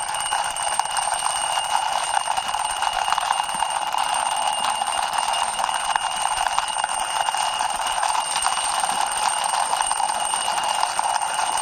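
Plastic wheels of a small toy police motorbike rolling along a rough wall as it is pushed by hand, making a steady, fast rattling buzz.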